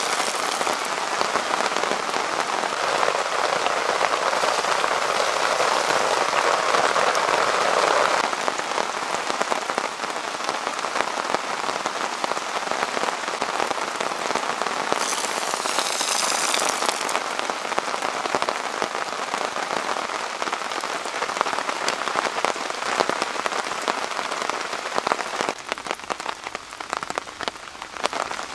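Heavy rain drumming on a canvas tarp overhead: a dense, steady patter of drops. It is a little louder for the first eight seconds or so, and the drop hits become more separate near the end.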